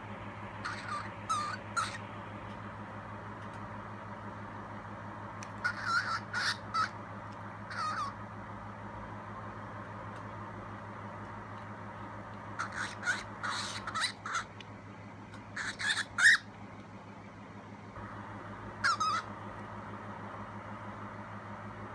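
Cockatiel giving harsh squawks in short bunches of a few calls, five times with pauses between, over a steady low hum. The owner takes these calls as the bird scolding her, frightened of the flying-fox pup nearby.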